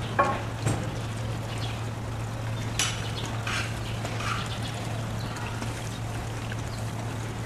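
A cow licking another cow's head and neck: a few short licking sounds in the first half, the first one loudest, over a steady low hum.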